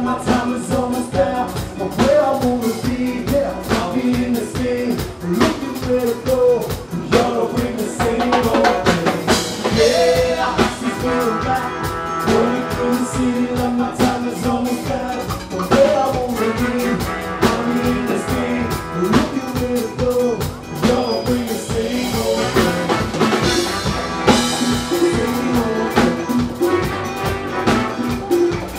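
Live band music with a lead vocalist singing over a steady beat from a drum kit and large batucada-style percussion drums, with guitar and keyboard in the mix.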